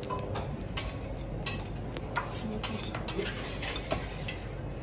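Metal spatulas clicking and scraping on a teppanyaki griddle in irregular strokes, about two a second, as food is tossed and chopped on the hot iron plate.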